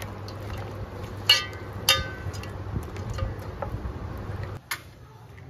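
A hand mixes pigeon pieces in a wet yogurt marinade in a steel bowl, with light clinks against the metal about a second and two seconds in and a sharp tap near the end. A low steady hum underneath stops shortly before the end.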